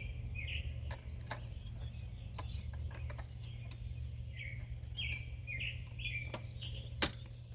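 A bird chirps in short, falling phrases, two bouts of several chirps each, over a steady low hum. A few light clicks sound throughout, and one sharp click near the end is the loudest sound.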